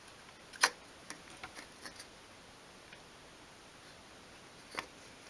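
Light clicks and taps of a small obeche-wood miniature table and its slats being handled and nudged on a cutting mat: one sharper click just over half a second in, a few softer ones over the next second and a half, and another near the end.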